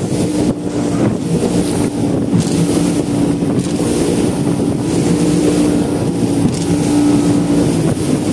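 Yamaha two-stroke outboard motor running steadily at cruising speed as the boat moves across choppy water. Wind buffets the microphone now and then.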